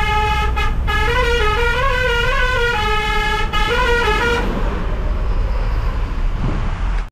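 A musical vehicle horn playing a short tune of held, stepping notes that stops about four and a half seconds in, over the steady low drone of a truck's engine heard inside the cab.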